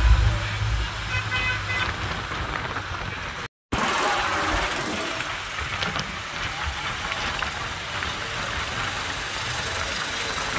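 Road traffic heard from a moving vehicle: steady engine and road noise with a deep rumble at first, and a short car horn honk about a second and a half in. The sound drops out completely for a moment a few seconds in.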